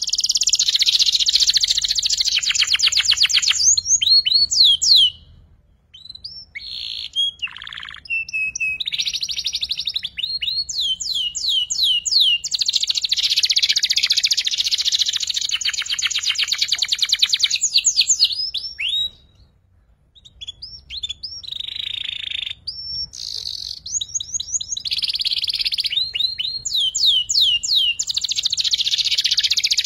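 Young domestic canary singing while learning its song: long phrases of fast buzzing trills ('ngeriwik') mixed with runs of quick rising whistled notes. It breaks off twice briefly, about a fifth of the way in and again past the middle.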